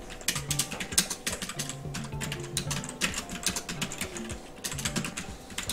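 Typing on a computer keyboard: irregular runs of quick key clicks, with background music playing underneath.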